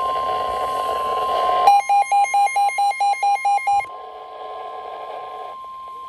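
Midland weather alert radio sounding the steady NOAA Weather Radio warning alarm tone for a severe thunderstorm warning. About two seconds in, a loud rapid beeping alarm, about five beeps a second, sounds over the tone for about two seconds. Then the steady tone carries on more quietly.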